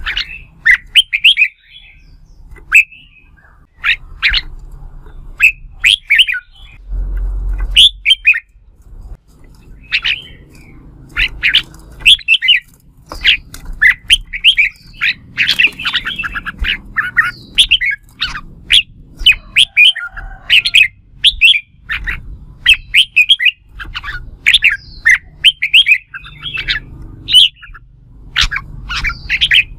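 Red-whiskered bulbul singing its competitive fighting song: a rapid, loud run of short, sharp chirping phrases with brief pauses between them.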